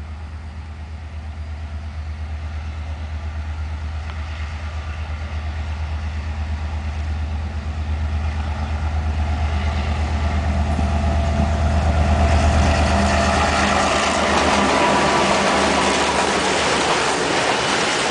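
Slovenian Railways class 644 diesel-electric locomotive approaching with a goods train, its engine running with a low, even throb that grows steadily louder as it nears. From about twelve seconds in, wheel-on-rail noise rises and takes over as the locomotive and its wagons pass close by.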